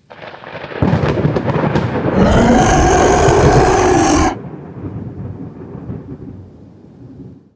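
Loud rumbling storm noise, loudest between about two and four seconds in, then cutting off suddenly to a quieter rush.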